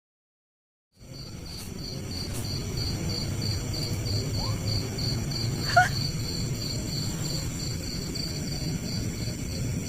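Night insects chirping in an even pulsing rhythm, about three pulses a second, over a low rumbling outdoor background. It starts about a second in after a moment of dead silence. A single short, sharp call or click rises in pitch a little past the middle and is the loudest moment.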